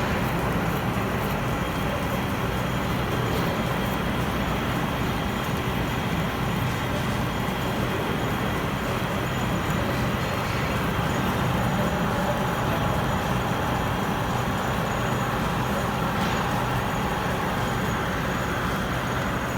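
16K20 engine lathe running with a steady machine drone and hum.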